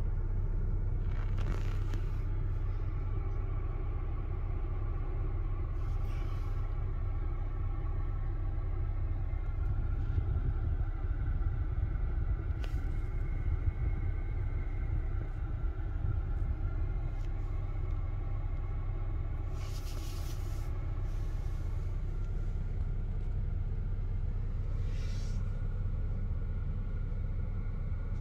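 Kia Stinger GT's 3.3-litre twin-turbo V6 with a Bastuck aftermarket exhaust idling steadily in park, a low, even rumble heard from inside the cabin.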